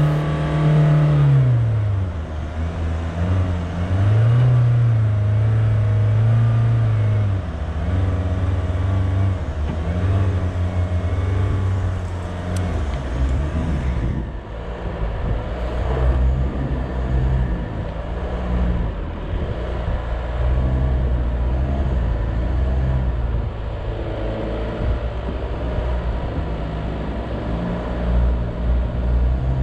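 4x4 engine labouring in low-range second gear through soft, boggy sand while towing a disabled vehicle, only barely able to pull the load. Revs dip about a second in, rise again, dip once more, then hold at a steadier low drone.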